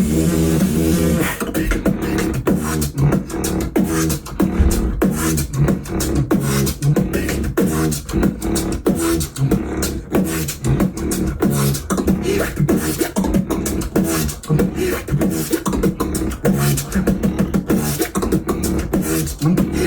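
Tag-team beatboxing by two performers' voices. A held, pitched vocal sound opens it, then about a second in it breaks into fast, dense drum imitations, with kicks, snares and clicks over a pulsing vocal bass line.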